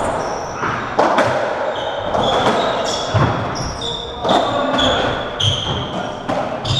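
Racketball rally on a squash court: the ball is struck by rackets and smacks off the walls and wooden floor about once a second, with short high squeaks from the players' shoes between the hits.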